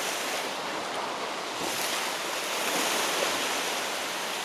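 Sea waves washing against a rocky shore: a steady rush that swells a little in the middle.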